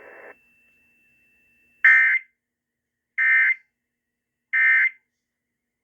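Emergency Alert System end-of-message data bursts: three short, identical, buzzy digital squawks about a second and a half apart, the coded signal that closes the warning.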